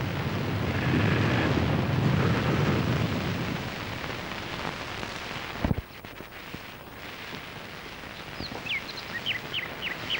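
Sea surf breaking on rocks: a loud, rumbling wash of waves that cuts off abruptly about six seconds in. A quieter hiss follows, with a run of short, high, downward-gliding chirps near the end.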